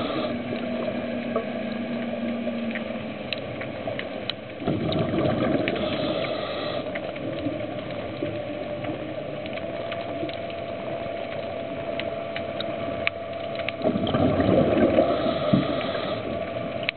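Underwater noise heard through a camera housing: a steady rushing wash scattered with brief sharp clicks. Two louder spells of bubbling come about five and about fourteen seconds in.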